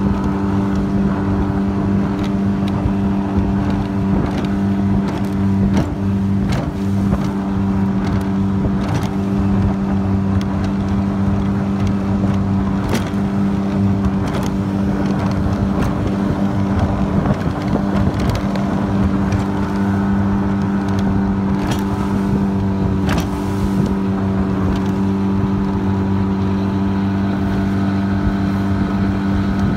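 Mercury 20 hp four-stroke outboard running at a steady speed, driving a 13-foot 1969 Boston Whaler over the chop, with occasional short knocks over the engine.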